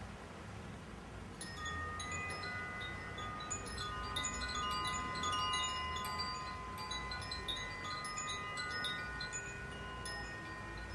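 Chimes stirred by hand, starting about a second and a half in: many light notes struck in a loose, irregular scatter, each ringing on and overlapping, thinning out near the end.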